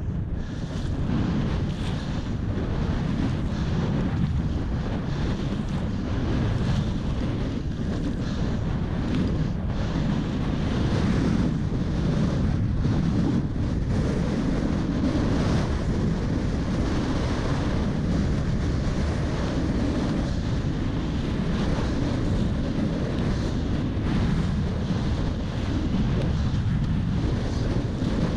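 Wind buffeting the microphone: a steady, loud, low rumble with no pauses.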